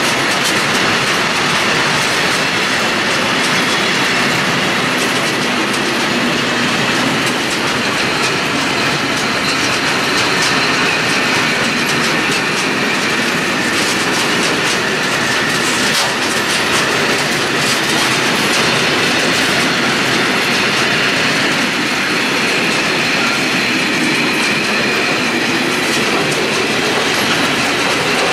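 Freight train of four-axle covered hopper wagons rolling steadily past: a continuous wheel-on-rail rumble with scattered clicks as the wheels run over rail joints, and a faint high wheel squeal.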